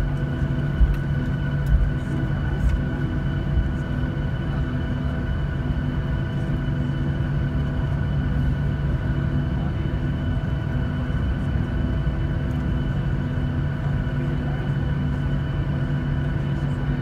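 Cabin sound of a Boeing 737-700 taxiing, its CFM56 engines at idle giving a steady whine over a low rumble. A few thumps in the first few seconds.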